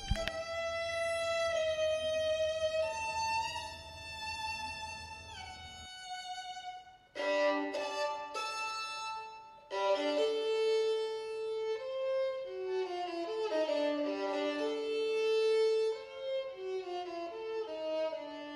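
Solo violin playing slow, unaccompanied: long held notes with a downward slide between them, then, after a short break about seven seconds in, two notes at a time.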